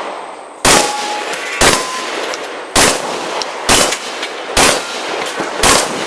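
12-gauge shotgun fired six times in quick succession, about one shot a second, at steel targets; a short metallic ring follows the first two shots as plates are hit.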